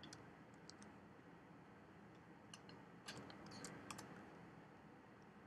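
Near silence with a few faint, scattered clicks from working a computer's mouse and keyboard.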